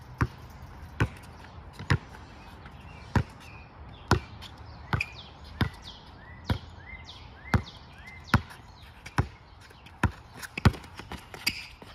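A basketball dribbled at a steady pace, sharp bounces coming a little more than once a second.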